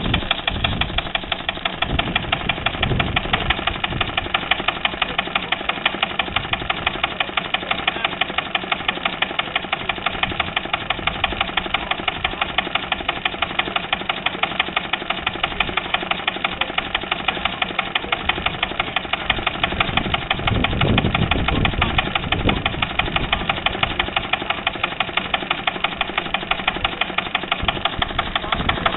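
Small single-cylinder Lister stationary engine running steadily, belt-driving a power hacksaw, with a regular beat of sharp knocks roughly three times a second.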